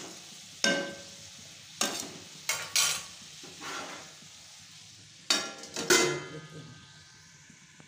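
Metal spatula scraping and stirring diced papaya and onion in a kadhai, over a low sizzle of frying: about six sharp scrapes. Around two-thirds of the way in, a steel plate lid clanks twice and rings briefly.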